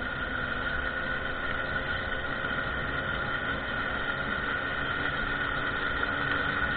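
Small moped engine running steadily while riding at speed, a continuous high-pitched drone that holds one pitch.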